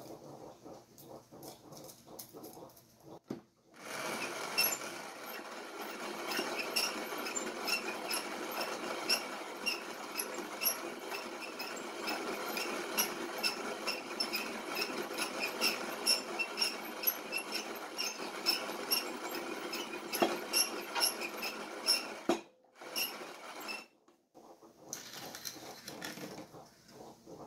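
Peugeot Frères hand-crank box coffee grinder grinding whole coffee beans: a steady crunching crackle of beans being crushed in the burrs, starting about four seconds in after a few light clicks of beans being loaded. It breaks off briefly about twenty-two seconds in, then grinding starts again near the end.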